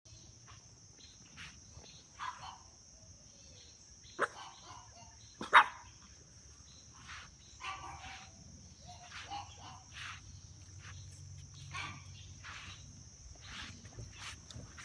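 Puppies yapping and whimpering in short, separate calls, with two sharp, louder yelps about four and five and a half seconds in.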